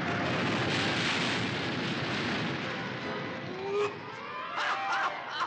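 Animated-film sound effect of a torrent of seawater rushing and crashing in, a loud steady roar that eases after about three and a half seconds, with a few short sliding tones near the end.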